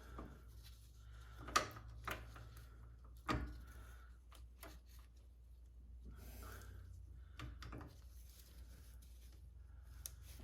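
Spartan locker parts clicking and knocking as they are worked by hand out of a Chrysler 8.25 differential carrier: a few sharp metal knocks, the loudest about a second and a half and three seconds in, with lighter ticks later, over a low steady hum.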